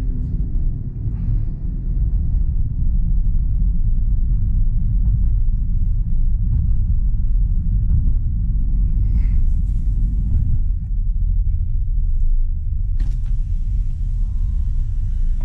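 Steady low in-cabin rumble of a 2023 Toyota Avanza 1.3 CVT driving on a highway: engine and road noise heard from the driver's seat. About thirteen seconds in, a brighter hiss suddenly joins in and carries on.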